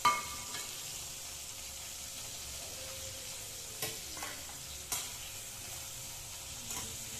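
Oil sizzling steadily in a steel wok while food is stir-fried, with metal spatulas clanking against the pan now and then; the loudest clank, at the start, rings briefly.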